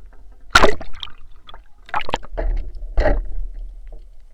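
Water splashing in short bursts: three louder splashes, less than a second to a second apart, among smaller sloshing and crackling sounds.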